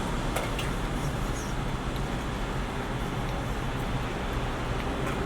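Steady low background rumble and hum, with a couple of faint clicks about half a second in.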